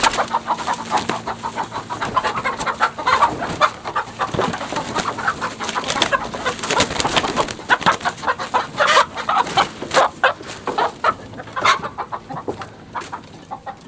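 Chickens in a hen house squawking and clucking in alarm, many short calls overlapping as the birds are disturbed by someone trying to net a rooster among them. The calls thin out near the end.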